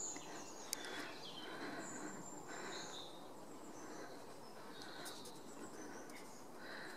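Faint woodland birdsong: thin, high, short whistles and chirps from small birds over a soft background hiss, with a sharp click just under a second in.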